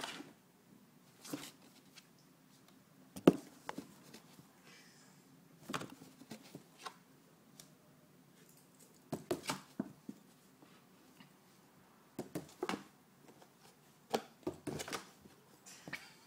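Cat moving about inside a cardboard shoebox: irregular scratches, scrabbles and knocks against the cardboard, the sharpest knock about three seconds in.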